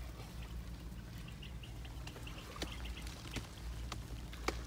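Digging into a dry earthen bank with a hand tool: scattered sharp knocks and scrapes over a steady low rumble, with faint high chirps in the background.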